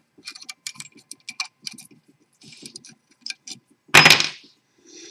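Small metal hand tools being picked up and handled: light scattered clicks and clinks, then a louder clatter lasting about half a second around four seconds in.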